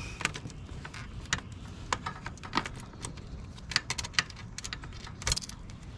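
Irregular light clicks and rattles of a throttle cable's metal end fitting and housing knocking against a steel frame bracket as it is worked through by hand.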